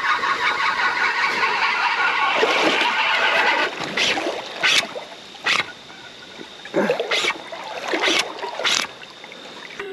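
A fishing reel whirring fast as a hooked salmon runs and strips line off it, cutting off about three and a half seconds in. After that come several short, sharp noises.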